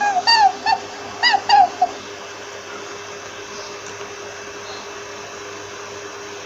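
Rabbit squeaking: a quick series of short, high, pitched squeaks in the first two seconds, then they stop. Steady hiss with a faint hum for the rest.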